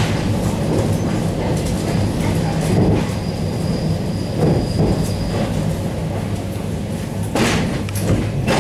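Running noise heard from inside an ED9MK electric multiple unit car as it rolls through station tracks: a steady low hum over a rumble. A thin high whine comes in for a few seconds in the middle, and the wheels give two louder clacks near the end.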